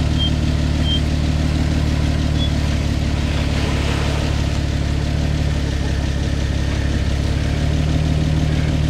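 Nissan Patrol GQ's engine running steadily at low revs while the four-wheel drive crawls slowly down a steep, muddy gully.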